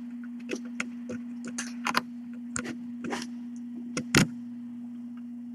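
A steady low hum at one pitch, with scattered short clicks and taps over it, the loudest about four seconds in.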